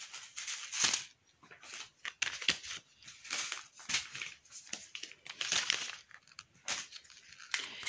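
Face-mask sachets and their packaging crinkling and rustling as they are handled, in irregular bursts.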